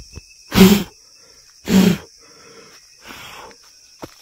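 A man's breath: two loud, sharp puffs close to the microphone about a second apart, then a softer one, as he reacts to a spider on his hand.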